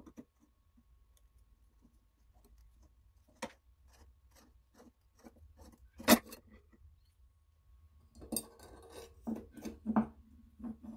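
Screwdriver turning out the screw of the rusty steel needle plate on a 1940s Peter Pan toy sewing machine: scattered small clicks and scrapes of the blade in the screw head, with a sharp metal click about six seconds in. Near the end the loosened plate rattles and scrapes against the cast-iron arm as it is worked off.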